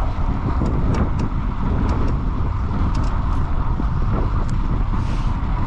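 Steady wind and road noise with a heavy low rumble and a few faint clicks, as heard while riding a bicycle outdoors.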